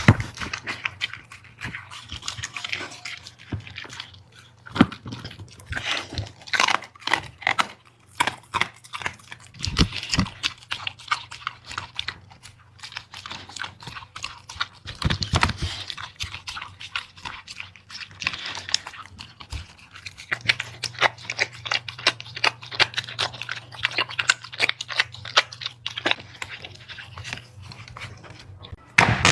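A dog eating its food, chewing and crunching in quick, irregular bites.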